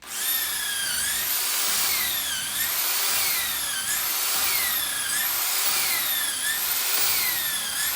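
High-speed power drill boring inoculation holes into an oak log for shiitake spawn. Its high-pitched whine sags and jumps back up about every second and a half, five or six times, then winds down near the end.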